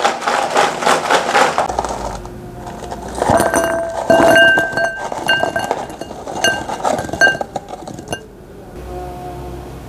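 Crispy fried potato donuts rattling in a bowl, then a run of sharp clinks with a short ring, like a glass bowl being knocked, over quiet background music.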